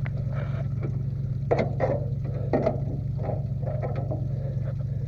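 Toyota Tundra pickup's engine idling with a steady low hum, with a few short metallic knocks and clatters, the loudest about a second and a half and two and a half seconds in.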